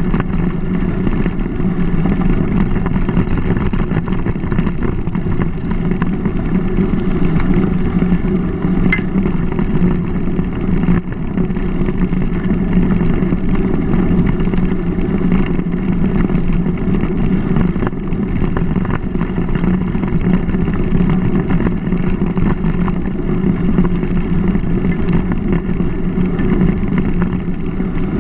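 Steady, muffled rumble of a mountain bike ride on a dirt towpath: tyres rolling and wind on a GoPro's microphone, unbroken and even in level.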